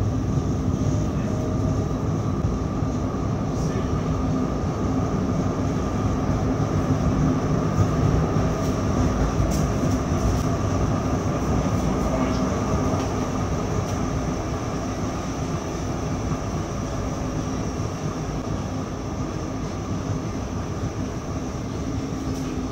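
Interior running noise of a 1970s DÜWAG Pt-Wagen articulated tram under way: a steady mix of traction-motor and gear tones over the rumble of wheels on rail, with a few faint clicks and rattles. It grows a little quieter over the last few seconds.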